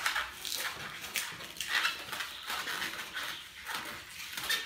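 Inflated white latex twisting balloon squeaking in a series of short, irregular squeaks as hands squeeze and rub it, softening it before twisting.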